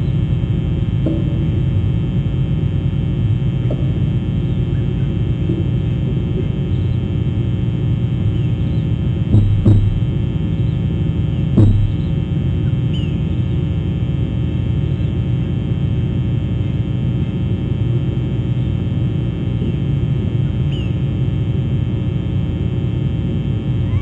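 A steady low rumble with a constant hum. Two sharp knocks come about two seconds apart near the middle, and a few faint short chirps are heard later on.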